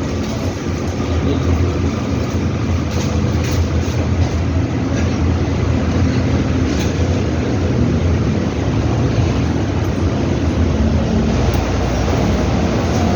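LG washing machine running during a function test after servicing, a steady mechanical rumble.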